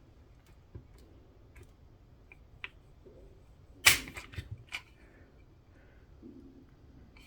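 Faint handling clicks, then about four seconds in one sharp metallic snap as the pistol's hammer falls on a dry-fire trigger pull, followed by a few lighter clicks. The trigger is being pulled to gauge its pull weight, which reads about 4 pounds.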